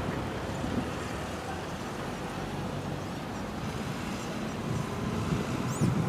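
Strong wind buffeting the microphone, a steady low rumbling noise, with a few faint bird chirps near the end.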